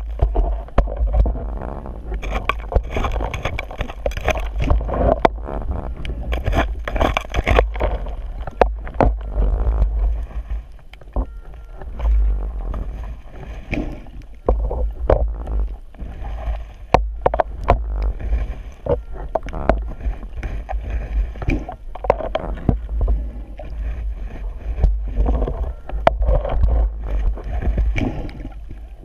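Muffled underwater scraping and knocking of a gloved hand digging in sand and shell on the bottom, over a steady low rumble of water against the camera housing, with two longer bursts of hissing noise in the first third.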